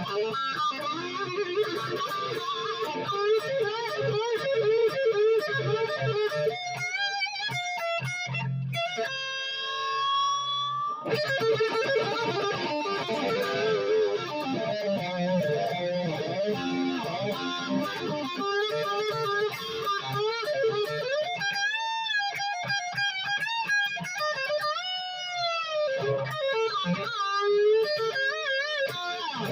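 Dean Switchblade ML electric guitar played through an amplifier: a continuous improvised lead line with string bends and vibrato, including a long held note with wide vibrato about nine seconds in.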